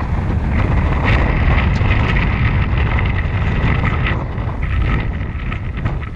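Wind buffeting the camera microphone: a loud, steady low rumble, with scattered small ticks and splashes from the choppy water.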